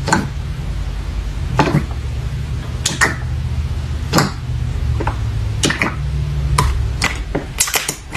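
Soft slime being squished and handled, giving about a dozen irregular sharp pops and clicks, several close together near the end, over a steady low rumble.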